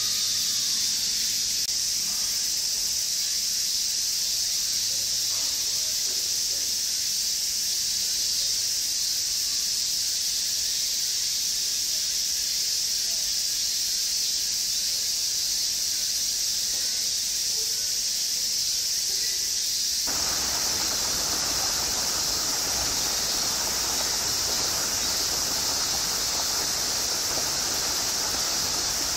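Summer cicadas droning steadily in a high, hissing band. About twenty seconds in, a broad rushing noise suddenly joins them.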